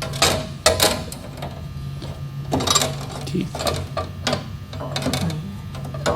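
Irregular clatter and knocks of hands handling parts inside the open lower cabinet of a sliding table saw, over a steady low hum.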